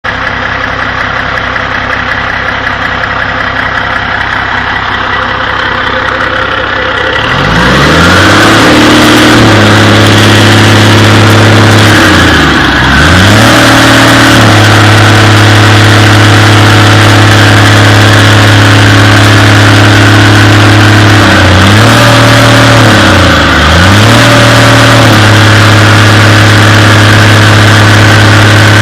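Caterpillar C15 ACERT twin-turbo inline-six diesel engine, quieter for about the first seven seconds, then revved up to a steady high speed and held there. The revs drop and climb back once near the middle and twice more near the end.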